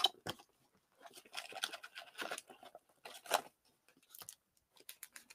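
Trading card packs in foil wrappers and a cardboard card box being handled: scattered crinkling rustles and light knocks, with a sharper knock at the very start and another about three seconds in.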